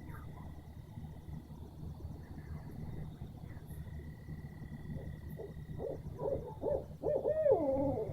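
Owl hooting: a quick run of hoots that builds about two-thirds of the way in and ends in a loud, drawn-out call that slides down in pitch.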